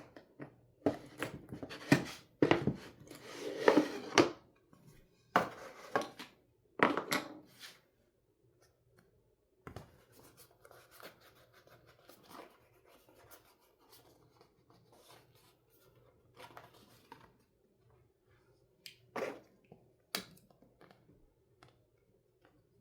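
Hook-and-loop fastenings on a wooden toy pizza being pulled apart, a series of short rasping rips in the first eight seconds, followed by quieter scratches and light taps of the wooden pieces being handled.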